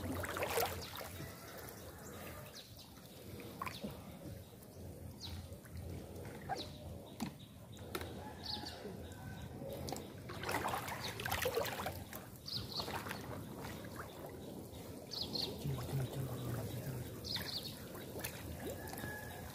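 Shallow water sloshing and trickling with scattered splashes, the loudest a little past halfway, as people wade and feel with their hands for fish.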